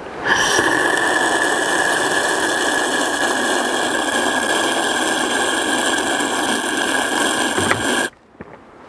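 Steady mechanical whirring from a small motor, with a high whine over it, that cuts off suddenly about eight seconds in.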